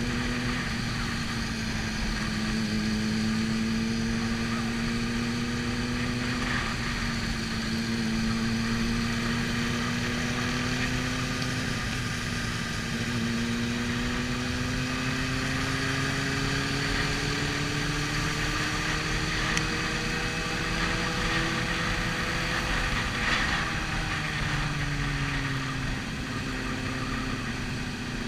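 Sport motorcycle engine heard from on board, cruising at low speed with its pitch slowly rising and falling as the throttle is eased on and off, over steady wind rush on the microphone. Other motorcycles in a dense pack run alongside.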